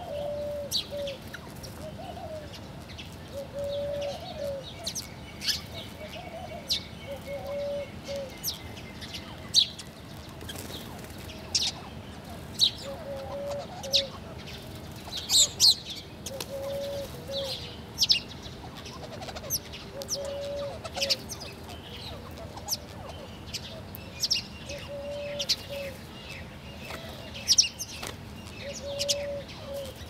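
House sparrows chirping, short sharp chirps coming often and irregularly, over a low soft cooing from a dove repeated every second or two.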